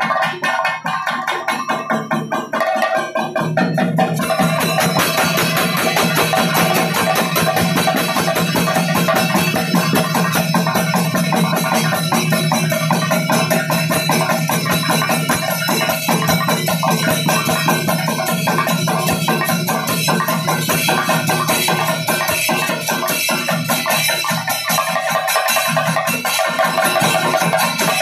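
Thayambaka ensemble of Kerala chenda drums beaten with sticks in a fast, dense rolling rhythm, with ilathalam hand cymbals ringing along. The playing grows louder and fuller about four seconds in.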